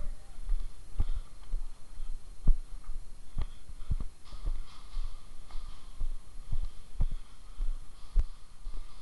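Dull, low thumps at irregular intervals, roughly one or two a second, over a steady low hum: movement knocking against the microphone of a body-worn camera.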